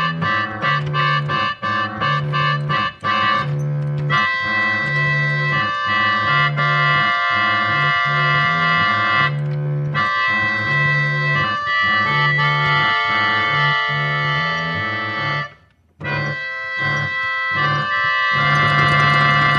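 Organ playing chords: short repeated chords at first, then long held chords over a pulsing bass note. The music breaks off for a moment about fifteen seconds in, then the chords resume.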